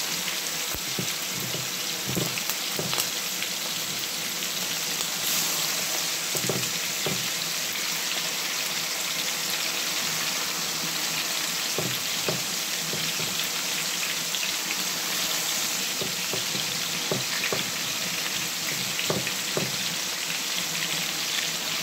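Pork pieces frying in hot oil in a pan: a steady sizzle with scattered crackles and pops.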